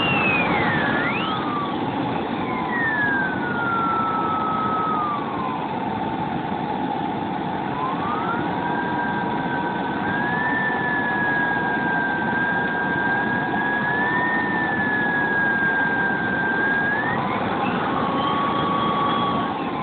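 Model jet turbine engines whining over a steady rushing noise, their pitch sliding up and down as they are throttled, with a steadier whine holding underneath.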